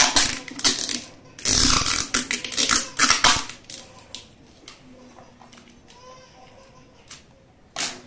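Black adhesive tape being pulled off its roll in two loud crackling, rasping tears as it is wrapped around a pyro tube, followed by quieter handling and a sharp knock near the end.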